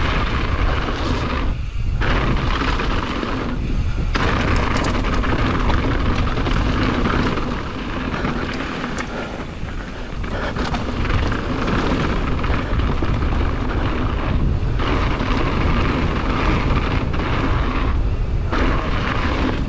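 Mountain bike tyres rumbling and crunching over loose slate gravel at speed, with heavy wind buffeting on the microphone. The noise is dense and continuous, easing briefly a few times.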